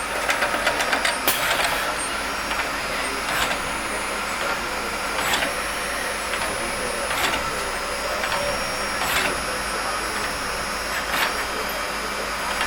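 Brother TC-31A CNC drilling and tapping center running, with a steady high whine and a sharp click about every two seconds.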